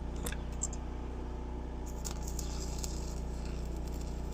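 Stick welding with a 7018 rod: the arc crackles steadily over a constant low hum.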